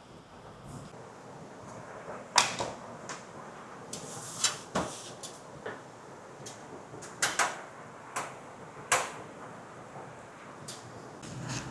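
Irregular sharp clicks and light knocks of computer hardware being handled and fitted together, about a dozen over the stretch with pauses between them.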